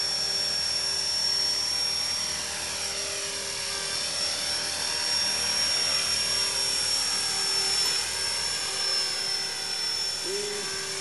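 E-flite Blade 400 electric collective-pitch RC helicopter in hover: a steady high-pitched motor and gear whine with the rotor's whir, its pitch sweeping up and down as the helicopter drifts about.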